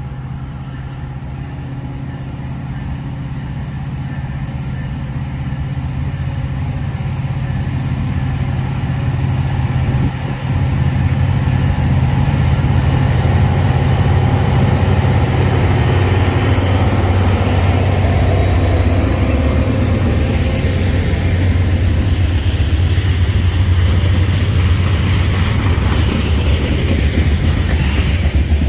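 Diesel freight train approaching and passing: a low locomotive engine rumble with rolling noise that grows louder over the first ten seconds, then stays loud and steady. The engine's low note drops a little about halfway through.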